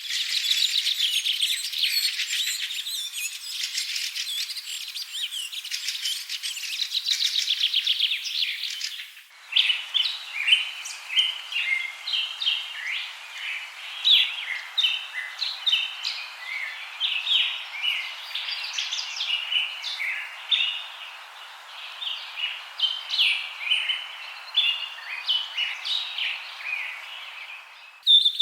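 Wild birds singing. First comes a dense chorus of rapid trills, then, after an abrupt cut about nine seconds in, separate short chirps and song phrases over a faint steady hiss.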